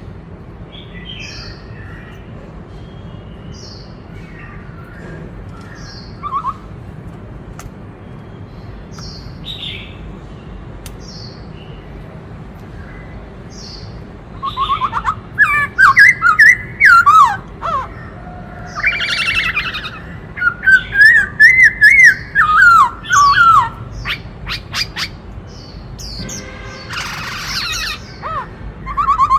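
Black-throated laughingthrush singing: faint short chirps about once a second, then about halfway through a loud burst of rapid, varied whistled phrases that slide up and down in pitch, easing off near the end.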